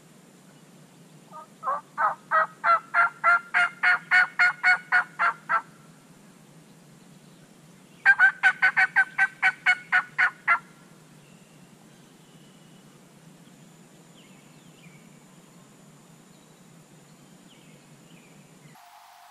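Turkey yelping: a run of about a dozen loud, evenly spaced yelps at about three a second. After a short pause comes a second run of about nine.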